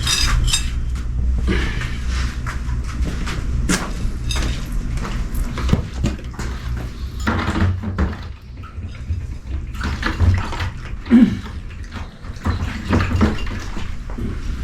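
Pungsan dogs eating from their bowls: irregular crunching, licking and clinks of the bowls over a low rumble.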